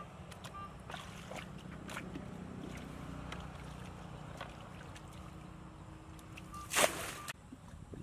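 Muddy puddle water being bailed out with a plastic bucket: scattered scooping splashes and sloshing, then one loud splash near the end as a bucketful is thrown out.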